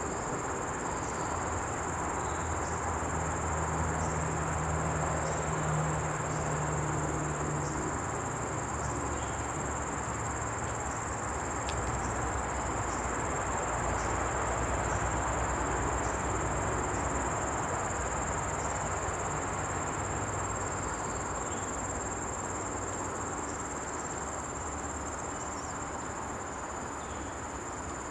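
Common bush cricket (Nisitrus vittatus) stridulating: a continuous high-pitched trill with a regular pulsing above it, over a low rumbling background.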